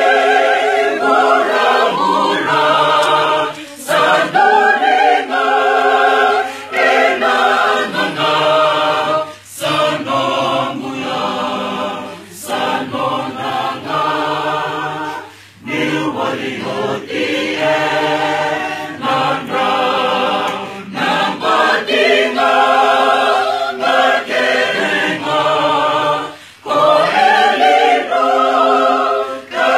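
A Fijian Methodist church choir singing a hymn a cappella, in sung phrases broken by brief pauses.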